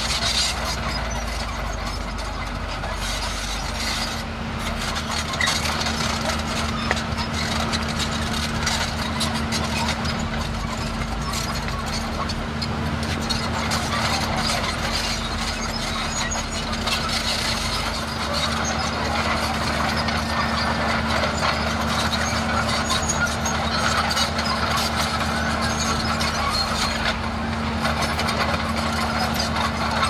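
Komatsu D31A crawler bulldozer's diesel engine running steadily under load, with a constant hum and the clatter of its steel tracks as it pushes soil.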